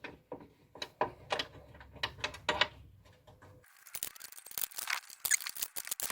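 Sharp, irregular clicks of a hand tool working the seat's fixing screw. Partway through, the sound changes abruptly to scraping, rustling and clattering as the seat and tools are handled.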